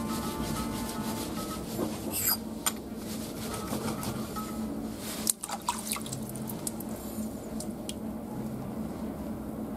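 Japanese plane (kanna) blade rubbed on a wet whetstone: wet scraping with water dripping, and a few sharp clicks of steel on stone, the loudest about five seconds in.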